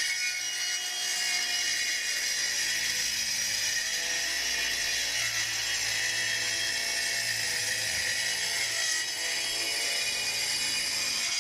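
Bosch 18V cordless circular saw fitted with a rip blade, cutting steadily through a 9 mm sheet of moisture-resistant MDF (Medite MR). The sound is an even, high cutting whine at a constant level.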